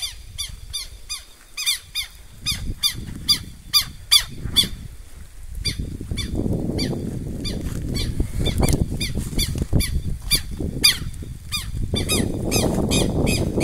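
Southern lapwings (tetéu) giving their harsh, repeated alarm calls, about three short falling notes a second, which is typical of adults defending a nest or chicks against an intruder. From about six seconds in, a low rustling noise runs underneath.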